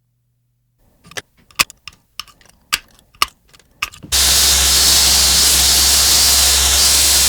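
A handful of sharp clacks from metal tools being handled, then a workshop machine switches on about four seconds in with a loud, steady rushing noise over a low hum.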